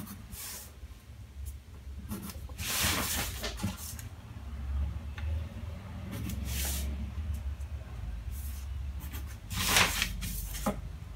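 Kraft paper rustling as hands, acrylic rulers and a tape measure slide and brush across it while a pattern is drafted: a few soft swishes, the loudest near the end, over a low steady rumble.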